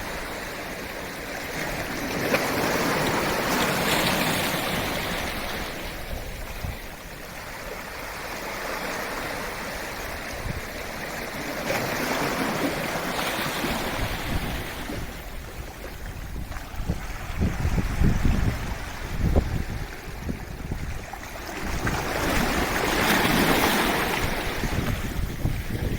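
Sea waves washing in and drawing back, the sound swelling and fading in surges about every ten seconds. Uneven low buffeting of wind on the microphone comes in about two-thirds of the way through.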